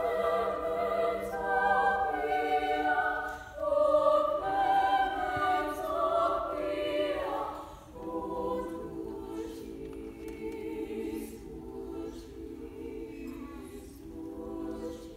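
Women's choir singing a cappella, full and moving for about the first half, then dropping about halfway through to a softer, lower chord held to the end.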